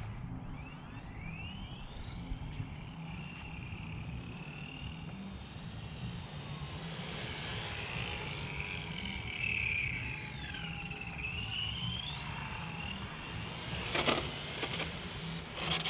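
Electric RC car's motor whining, the pitch rising and falling several times as the car speeds up and slows down, with a short knock near the end.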